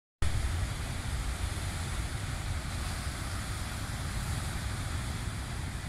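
Wind buffeting the microphone over the steady wash of heavy surf breaking on a rocky shore. It cuts in suddenly just after the start.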